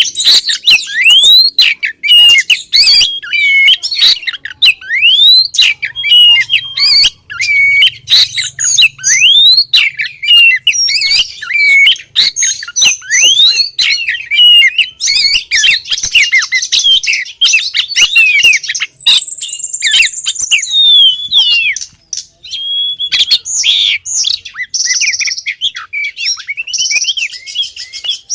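Female Oriental magpie-robin (kacer) calling in breeding condition, the call that summons a male: a rapid, unbroken run of chirps, upward-sweeping whistles and harsh buzzy notes, with a high trill a little past the middle.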